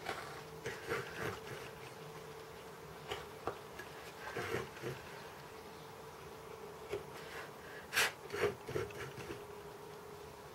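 Chip-carving knife cutting into wood: irregular short, scratchy cuts and crackles, the sharpest about eight seconds in, over a steady hum.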